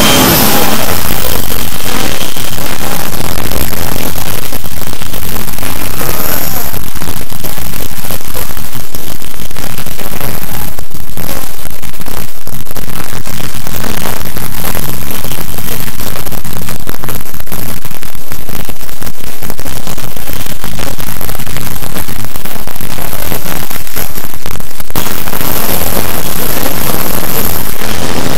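Very loud, overdriven wall of noise with no let-up: many video soundtracks stacked on top of one another and distorted until they blur into an even hiss at every pitch.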